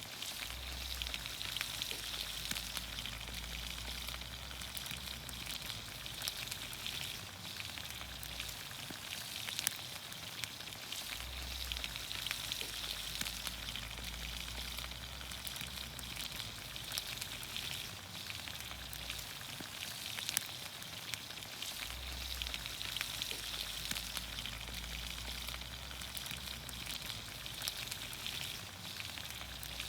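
Green beans, onions, carrots and potatoes sizzling steadily in olive oil over a campfire, with scattered sharp crackles.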